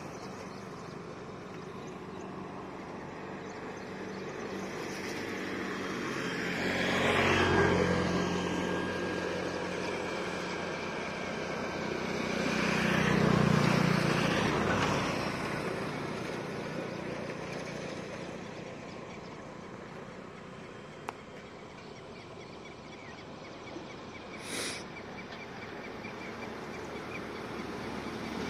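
Motor vehicles passing on a road, engine sound swelling and fading twice, about seven and thirteen seconds in, over a steady traffic background. A short sharp sound about twenty-four seconds in.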